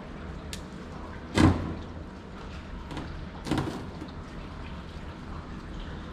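Two knocks on the kayak over a steady low background noise: the louder one about a second and a half in, a smaller one about two seconds later.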